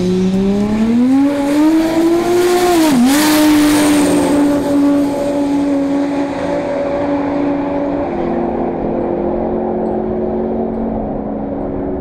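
Drag cars accelerating hard down the strip, led by the Holden VP Calais's twin-turbocharged 427 cubic-inch LSX V8. The engine note rises in pitch, dips sharply at a gear change about three seconds in, then holds a steady note that slowly falls away as the cars pull into the distance.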